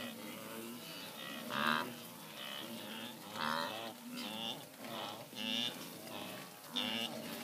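A herd of wildebeest calling: many short, overlapping lowing grunts, several a second, one after another. This is the calling of the rut, while males hold temporary territories among the females.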